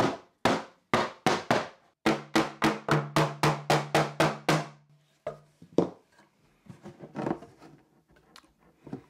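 Hammer blows knocking on the underside of an old beech chair's frame, sharp wooden knocks: about five spaced blows, then a fast run of about four a second for a couple of seconds, then a few single knocks and softer handling sounds near the end. The knocking is meant to shake loose a glued mortise-and-tenon corner joint by vibration.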